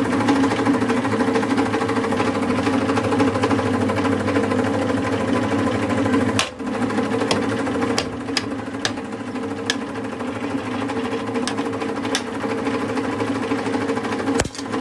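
Hydraulic press's pump motor humming steadily as the ram presses down on a hollow plastic toy. From about halfway through, the toy's shell gives a series of sharp, irregular cracks and snaps as it splits and flattens.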